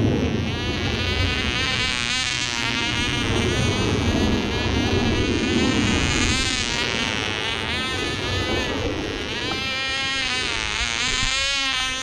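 Sig Dewey Bird control-line model plane's small engine whining at high revs in flight, its pitch rising and falling over and over as the plane circles on its lines.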